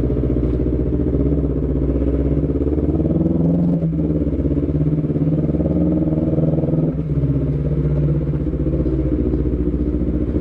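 Honda CBR250RR motorcycle's parallel-twin engine, just started, running steadily and then pulling away at low speed, with brief breaks in the note about four and seven seconds in.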